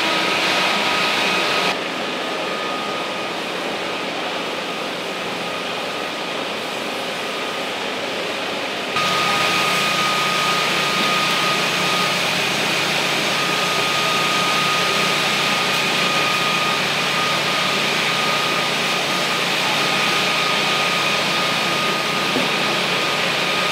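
Machinery running steadily at a fire scene, a constant mechanical rush with a high, steady whine over it; it drops in level about two seconds in and comes back louder about nine seconds in.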